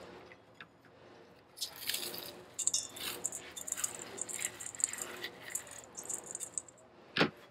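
Butter crackers being crushed and crumbled by hand over a bowl, making an irregular run of faint dry crackling and crunching. There is one sharp click near the end.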